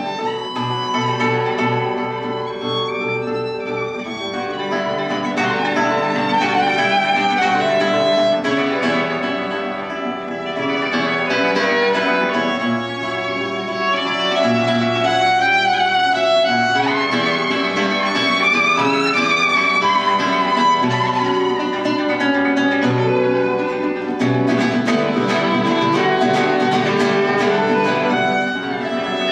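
Violin and classical guitar playing a duet: the bowed violin carries the melody, sliding in pitch in places, over the guitar's plucked accompaniment and bass notes.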